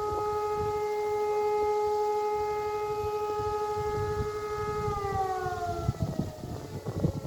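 Several E57 electromechanical civil-defence sirens sounding together, holding a steady tone and then winding down in pitch about five seconds in. Wind buffets the microphone near the end.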